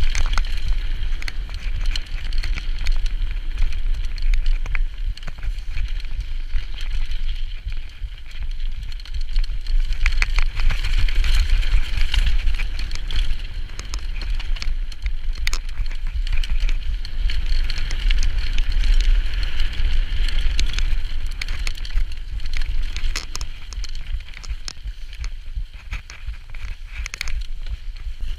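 Mountain bike riding downhill on a dirt and gravel trail, heard from a camera on the rider: a steady hiss of tyres on the track, frequent clicks and knocks of the chain and frame rattling over bumps, and a low rumble of wind on the microphone.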